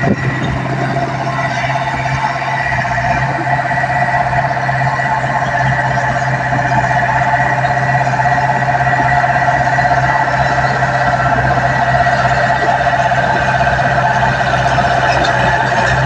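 Komatsu D20P mini crawler bulldozer's diesel engine running steadily under load as it pushes through deep mud, with steady whining tones over the engine.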